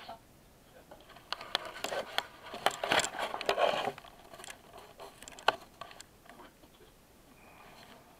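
Handling noise and movement as the camera is picked up and carried: a run of rustling, scuffing and sharp clicks, loudest from about one to four seconds in. A few scattered clicks follow, one sharp click about five and a half seconds in.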